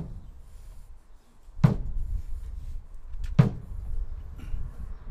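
A slow, steady beat of heavy low thumps, one about every second and three quarters, keeping time at the tempo of the song that follows.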